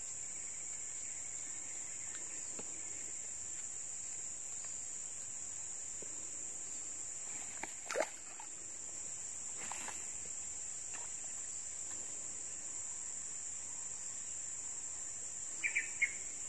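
Steady high-pitched insect chorus, crickets or similar, droning without a break. About halfway through comes one short, sharp noise, the loudest moment, with a fainter one a couple of seconds later and a few quick chirps near the end.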